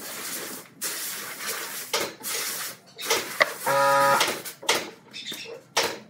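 Pen scratching marking lines on wooden blocks, with a steel try square sliding and knocking against the wood and workbench, in short scratchy strokes and taps. About four seconds in, a brief steady buzzing tone is the loudest sound.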